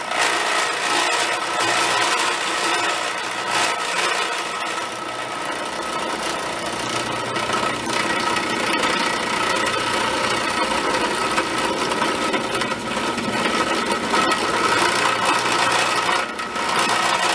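Converted Harbor Freight bench drill press running at about 1700 RPM as a milling machine. The motor and spindle hum steadily while an end mill cuts along the side of a metal block held in a vise.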